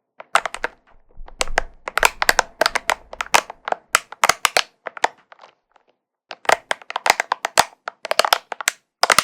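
Spiky ball handled close to the microphone, giving bursts of dense crackling clicks with a short pause about six seconds in.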